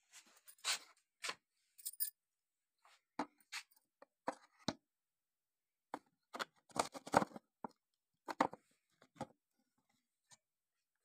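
Small wooden lamp box being handled and fitted against a wall: irregular knocks, taps and scrapes of wood, coming in short clusters.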